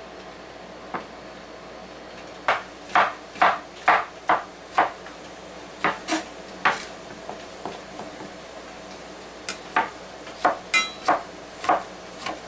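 Chef's knife chopping soft zucchini flesh on a wooden cutting board: sharp knocks of the blade hitting the board, coming in runs of quick chops, about two a second, with a near-pause in the first two seconds.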